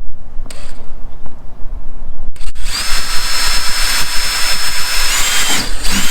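Power drill running for about four seconds, starting a little past two seconds in, with a steady high whine that steps higher near the end.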